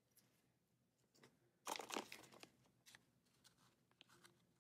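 Plastic candy packaging crinkling in the hands: one short crinkle about two seconds in, with a few faint rustles and ticks around it.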